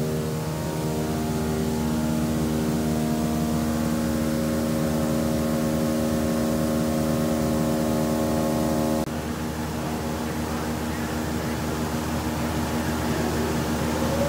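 Sawmill machinery running steadily: a motor drone with a low rumble underneath. About nine seconds in the sound changes abruptly to a slightly quieter, noisier machine hum, with a faint rising whine near the end.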